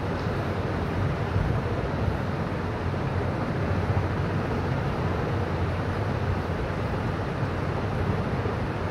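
Steady background noise: a constant low hum under an even rushing sound, with no distinct events.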